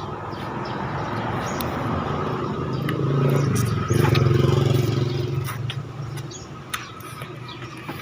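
A motor vehicle passing on the road. Its engine hum swells to a peak about halfway through and then fades away, with a few light clicks on top.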